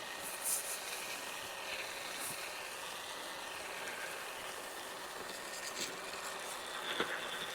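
Small battery-powered handheld seed spreader (Scotts Wizz) whirring steadily as it broadcasts seed, with a few brief rustles of tall, dry weeds brushing past.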